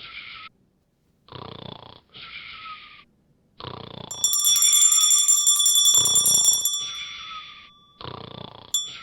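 Snoring, one snore every second or so, and a bell alarm clock ringing loudly for about two and a half seconds in the middle, with the snores going on through and after it: an attempt to wake a sleeping bear that fails.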